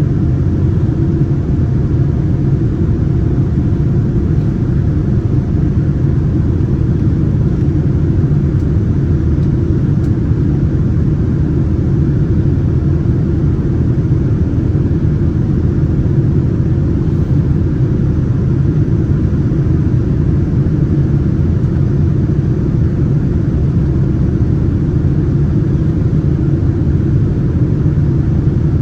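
Steady low rumble of a Boeing 787's engines and rushing air, heard from inside the passenger cabin.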